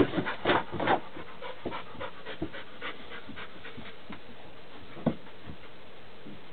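Bouvier des Flandres bitch panting steadily, about three breaths a second, with a cluster of scuffs and knocks in the first second as she paws and noses the bedding in a wooden whelping box, and one more knock about five seconds in. Panting and nest-building like this is typical of a bitch close to whelping.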